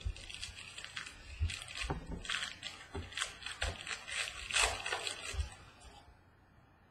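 Foil wrapper of a baseball card pack crinkling and rustling as it is opened and the cards are pulled out. The crackling stops about six seconds in.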